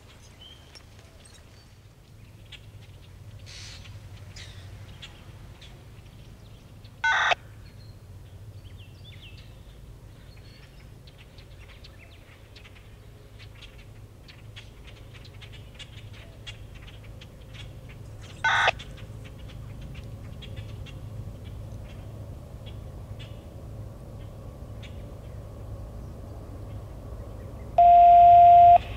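Scattered bird chirps over a low steady rumble. Two short, loud electronic-sounding beeps come about a quarter of the way in and again just past halfway, and a loud steady tone sounds for about a second near the end.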